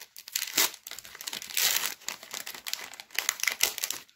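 Foil Pokémon booster pack wrapper crinkling as it is torn open and handled, in quick irregular crackles.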